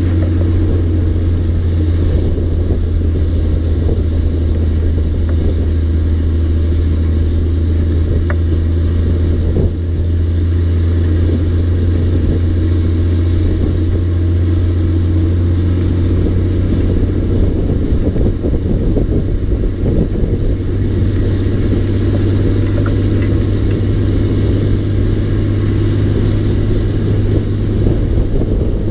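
Peterbilt 359's Caterpillar 3406 straight-six diesel pulling steadily while hauling a 23-tonne load, heard from the trailer behind the cab as a loud, even, deep drone. A few knocks and rattles from the load come through, one just before the middle.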